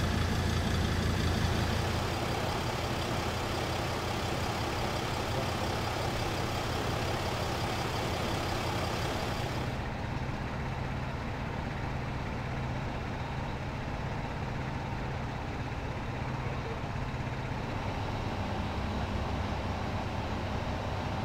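Heavy engines idling steadily: a low, even hum with a light hiss over it, and no sudden sounds.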